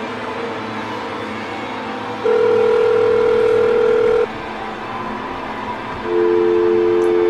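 Telephone ringback tone heard while a call rings out: a steady two-second ring about two seconds in, then a second, lower steady tone starting about six seconds in, over a quiet droning music bed.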